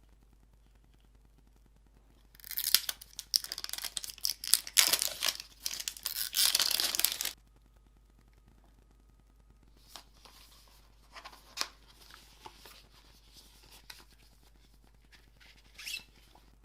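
Packaging of a new phone box being torn and crinkled for about five seconds, then quieter scattered clicks and rustles as the box and its contents are handled.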